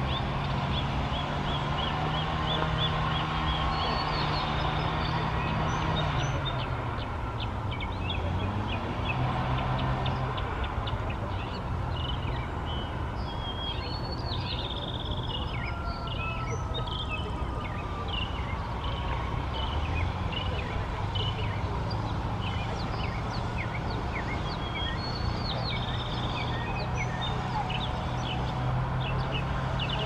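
A mockingbird singing a long run of short, high chirping phrases, over a steady low mechanical hum.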